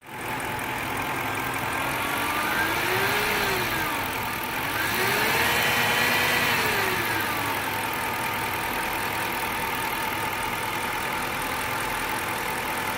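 2006 Dodge Charger R/T's brand-new 5.7-litre Hemi V8 idling and revved twice, each rev rising and falling over two to three seconds before settling back to idle. The owner hears an unexplained humming noise from it at idle and under acceleration.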